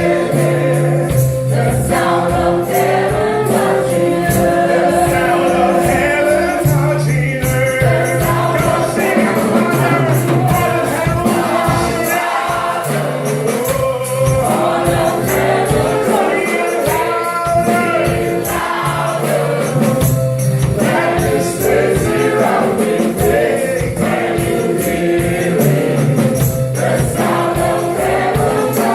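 Gospel choir singing over an instrumental backing with bass and a steadily shaken tambourine.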